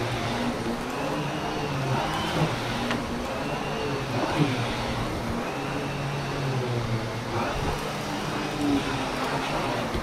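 Vacuum cleaner running, its motor pitch rising and falling about every second and a half.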